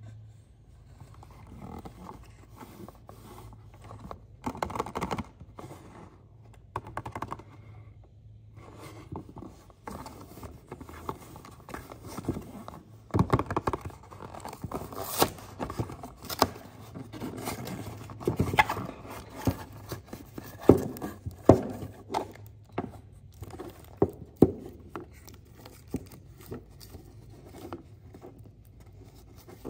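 Fingers handling and opening a cardboard box of foil-wrapped chocolate eggs: scraping, tearing and tapping on the cardboard, with sharp knocks and crinkles as the eggs are taken out and handled. The loudest knocks fall in the middle, over a low steady hum.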